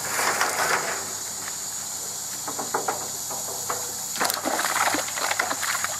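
A long-handled landing net sweeping through a fish tank to scoop out jade perch: water splashing and sloshing, in a burst just at the start and a stronger burst a little past halfway, with scattered knocks and splashes between.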